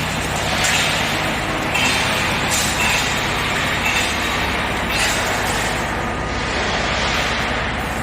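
Automatic wire mesh panel welding machine running through its weld cycles: steady machine noise with a pneumatic hiss that repeats about once a second.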